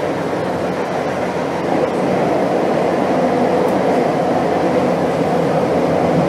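Madrid Metro Line 1 train running through a tunnel: a steady rumble of wheels and motors that gets a little louder about two seconds in.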